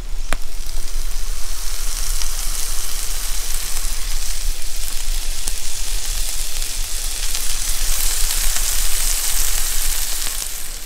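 Diced bacon sizzling steadily in a frying pan on a portable butane gas camp stove, with one sharp pop just after the start; the sizzle fades out near the end.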